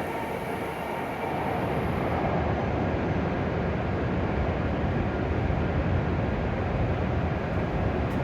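W7-series Shinkansen train running at low speed through the station with a steady rumble. Its motor whine fades out right at the start, and the hiss above the rumble drops away about two seconds in.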